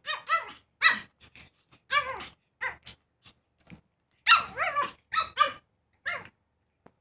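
Pug puppy barking: about a dozen short, high-pitched yaps in quick runs, with a short pause in the middle.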